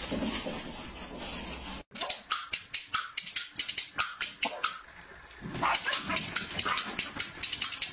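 Corgis barking in a rapid run of short, sharp barks, a few per second, with a brief lull about five seconds in before they start again. Before that, a steady hiss cuts off abruptly about two seconds in.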